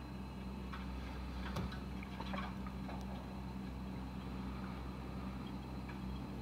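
Distant snowblower engine running steadily: a low, even hum, with a few faint light ticks over it.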